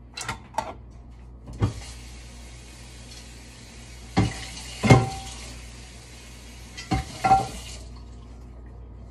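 Kitchen tap running for about six seconds, with cookware knocking and clanking at the sink several times, a few of the knocks ringing briefly like metal.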